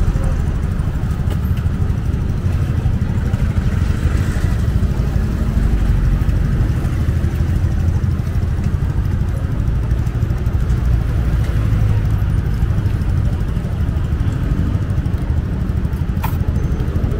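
Busy street ambience: a steady low rumble of motorcycle and vehicle engines with faint chatter from people around. There is one sharp clink near the end.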